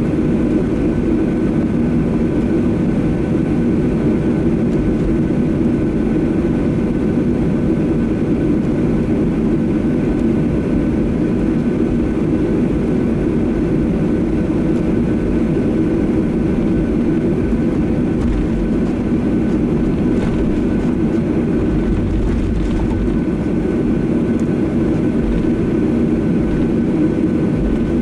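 Steady cabin drone of a Boeing 737-800 taxiing, its CFM56 jet engines at idle, with thin steady whining tones over a broad low hum. A low rumble swells briefly about three quarters of the way through.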